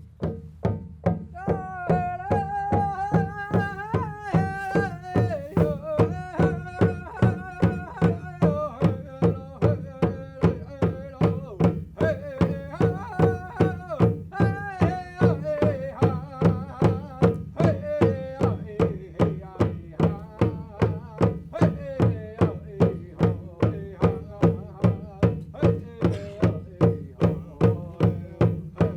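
A Native American singer beats a steady drum, about two to three strokes a second, and sings over it. His melody starts high and steps down, climbs again near the middle, and falls once more.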